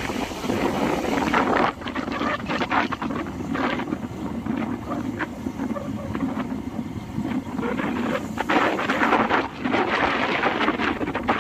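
Wind buffeting the microphone of a phone carried on a moving motorcycle, in uneven gusts, over the bike's riding noise.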